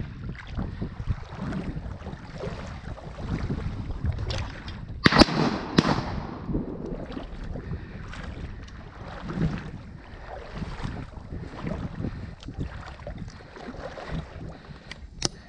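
Water rushing and lapping at the bow of a small boat moving along a narrow channel, with wind buffeting the microphone. A single sharp bang about five seconds in trails off over about a second, and a smaller sharp click comes near the end.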